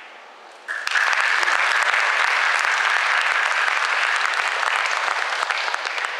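Audience applauding, starting suddenly under a second in and easing off near the end.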